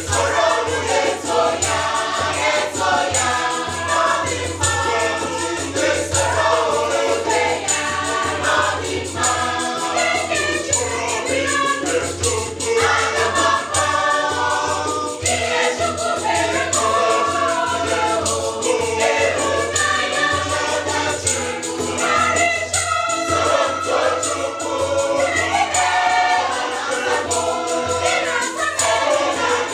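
A large mixed gospel choir singing an Igbo praise song in parts, backed by an electronic keyboard, with jingling hand percussion keeping the beat.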